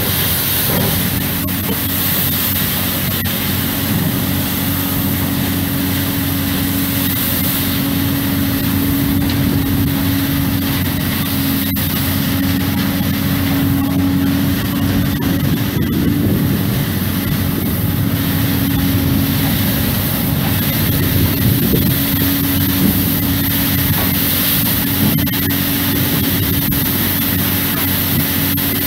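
Crane-mounted hydraulic rotary brush cleaner, driven from the crane's hydraulic system, running steadily as it sweeps coal dust residue from the floor of an open gondola wagon: a constant mechanical noise with a steady hum.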